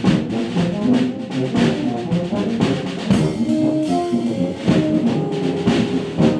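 Brass band music with drums: brass instruments playing a tune over a drum beat.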